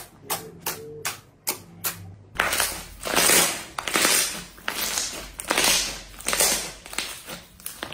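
Slime being pressed and worked by hand: crisp clicks about three a second, then from about two seconds in, louder crackling squelches about twice a second.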